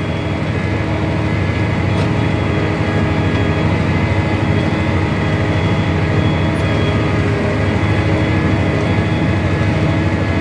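Tractor engine running steadily under load while pulling a plow through the soil, a constant deep engine hum.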